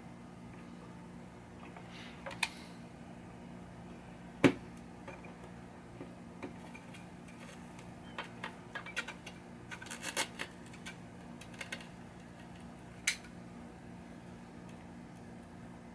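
Scattered clicks and light metallic scrapes of hand tools and small wire parts being handled during electrical work, with one sharper click about four and a half seconds in and a cluster of quicker clicks later on, over a steady low hum.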